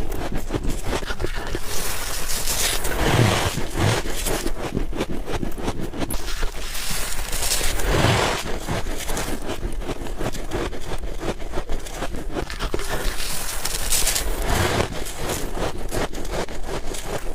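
Close-miked biting and chewing of soft white ice or freezer frost: dense crunching and squeaking. Louder bites come about three seconds in, around eight seconds and near fourteen seconds.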